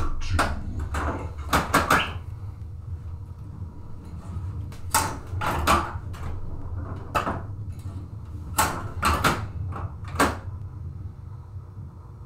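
Stern Lightning pinball machine in play: about ten sharp mechanical knocks and clacks at irregular intervals, some in quick pairs, over a low steady hum.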